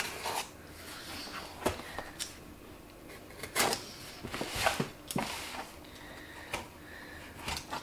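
A utility knife slicing through the packing tape on a cardboard box, with irregular scrapes and clicks of the blade and several louder strokes in the middle.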